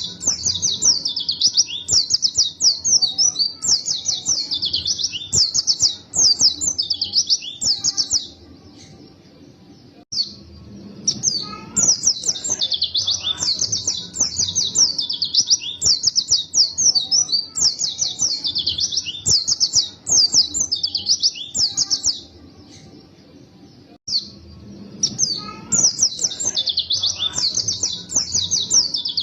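A white-eye (pleci) singing long, rapid runs of high, twittering chirps. The song breaks off twice for about two seconds.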